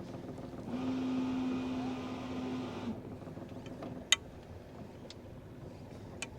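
Electric bow thruster of a Jeanneau Sun Odyssey 350 sailing yacht running in one burst of about two seconds, a steady whine, as the boat is manoeuvred off its berth. A sharp click follows about four seconds in.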